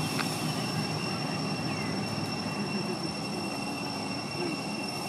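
Steady low engine rumble in the distance, with a steady high-pitched tone over it and a few faint short chirps.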